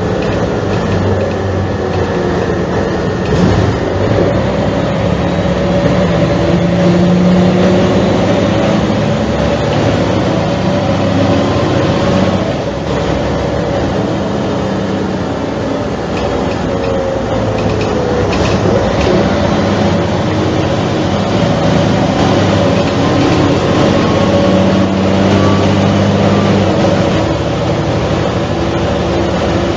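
Mercedes-Benz O345 city bus's diesel engine running under way, its note rising and falling several times as the bus speeds up and slows down.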